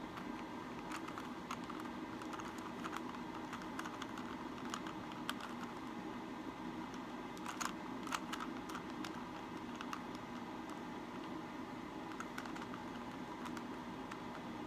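A plastic 3x3 Rubik's cube being turned by hand: irregular quick clicks and clacks of its layers rotating, with a louder burst of turns about halfway through.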